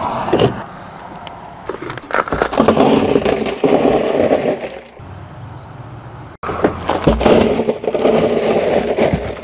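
Gravel poured from a plastic five-gallon bucket into a plastic barrel: a dense rattle of stones tumbling in, twice, each pour lasting two to three seconds.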